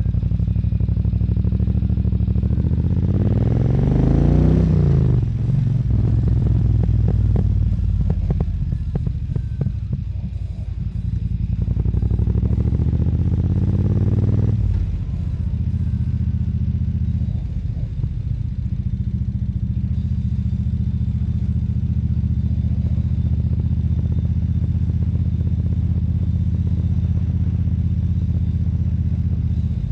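Moto Guzzi California EV's air-cooled V-twin heard from the rider's helmet. It pulls away with the revs climbing, revs up again to a sudden drop about halfway through (a gear change or throttle-off), then runs steadily at cruising speed.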